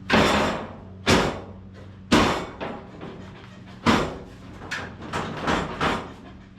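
Heavy metal clanks and bangs as the steel hood of a 1951 Ford is worked on its newly made latch: four loud bangs about a second apart, then several lighter knocks.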